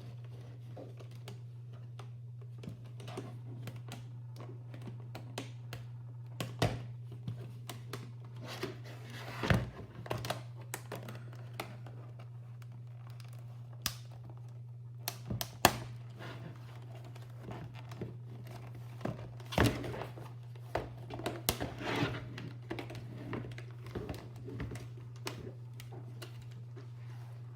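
Scattered plastic clicks and knocks, some in quick clusters, of a mechanical gaming keyboard being handled and taken apart, over a steady low hum.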